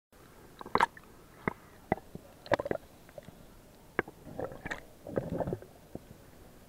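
Water gurgling and sloshing around a camera at the waterline as a diver in a rubber diving suit goes under. There are a few sharp knocks and clicks in the first three seconds, then two gurgling bursts about four and five seconds in.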